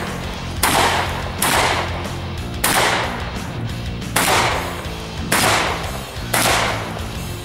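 Shotgun fired six times in quick succession, unevenly about a second apart, each shot trailing off in a short echo. Background music plays underneath.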